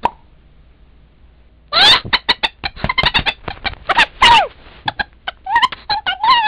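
High-pitched, sped-up chipmunk-style cartoon voice laughing in a run of rapid, cackling bursts, starting about two seconds in after a short quiet gap, with a few longer rising-and-falling cries near the end. It has the thin, low-fidelity sound of a Nintendo DSi Flipnote recording.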